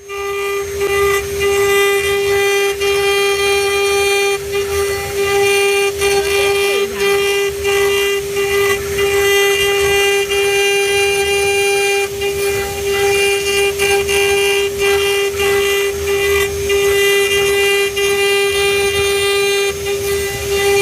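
CNC router spindle running at speed while carving bamboo: a steady high whine with overtones, over the uneven rasp of the bit cutting.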